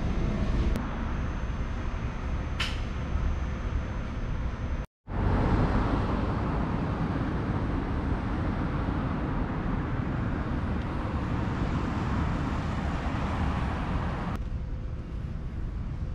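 Steady outdoor rumble and hiss of vehicle-type background noise, broken by a brief total dropout about five seconds in, with one faint tick early on and the hiss easing near the end.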